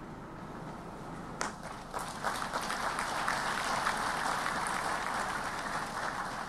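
Audience applauding: the clapping starts about a second and a half in, swells, then begins to taper off near the end.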